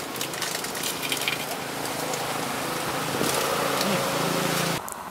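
Crackling crunches of crispy fried chicken being bitten and chewed, over steady roadside traffic noise with a vehicle engine growing louder. The sound drops suddenly near the end.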